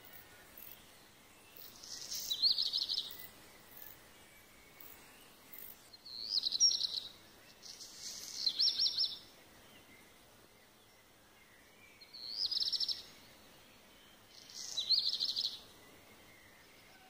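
A songbird singing five short, high trilled phrases, each about a second long and two to four seconds apart, over a faint steady background hiss.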